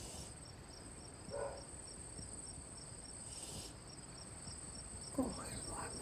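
Crickets chirping at night: a steady high trill with evenly spaced chirps about three times a second. A brief hiss comes about three and a half seconds in.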